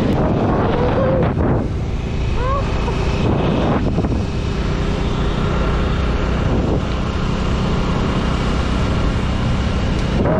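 Bajaj Pulsar NS200 motorcycle riding along at a steady speed: heavy wind noise on the microphone over the steady low drone of its single-cylinder engine.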